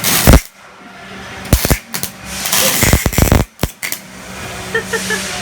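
Electric arc welder crackling and sputtering in four short bursts, each from a fraction of a second to about a second long, over a steady low hum.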